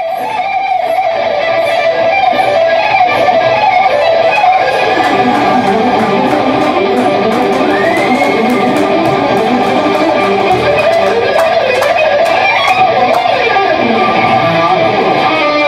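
Glam rock band playing live: two electric guitars over drums with steady cymbal hits, fading in over the first couple of seconds.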